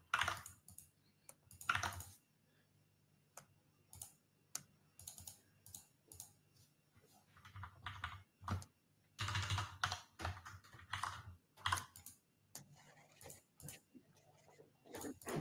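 Typing on a computer keyboard: irregular runs of keystrokes with pauses between them, and a denser run of typing about nine seconds in.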